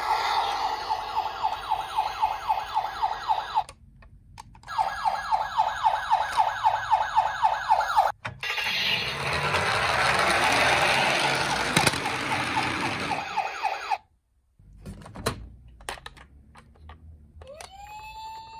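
Toy ambulance's electronic siren sounding a fast yelp, cutting out for about a second and starting again. It is followed by a longer, noisier whirring stretch, then a few light clicks and a steady tone starting near the end.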